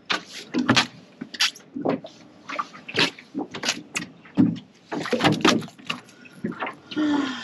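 A freshly caught kingfish (king mackerel) flopping on a fiberglass boat deck, its body and tail slapping the deck in a run of irregular sharp knocks, several a second.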